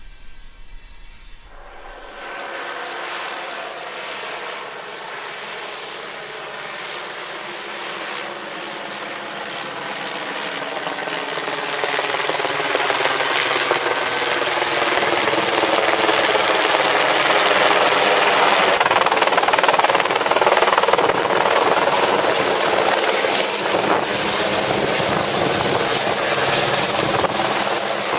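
Eurocopter AS350 B3 Écureuil helicopter flying overhead: turbine whine and main-rotor noise, starting about two seconds in and growing steadily louder for some fifteen seconds before holding loud and steady.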